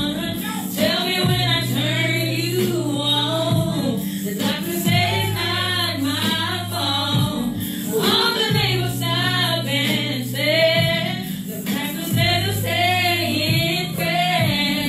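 Woman singing a soulful ballad into a karaoke microphone over a backing track, with long held low notes under the voice.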